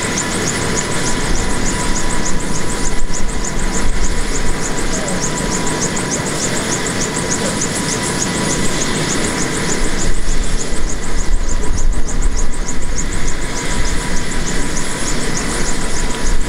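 Bell AH-1S Cobra attack helicopter running on the ground with its main rotor turning: a steady turbine whine, with a rapid regular ticking high up and a low rumble beneath.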